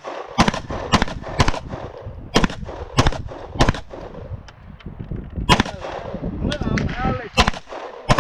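A string of about ten gunshots fired one at a time in quick, uneven succession, with longer gaps toward the end, as a magazine is emptied.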